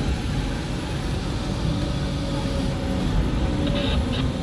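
Marsh buggy excavator's diesel engine running steadily under load, heard from inside the cab, with a faint steady whine over the low rumble.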